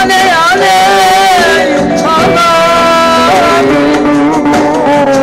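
A woman singing into a microphone, amplified through a PA loudspeaker over backing music, in a Middle Eastern-style melody with wavering ornaments and long held notes.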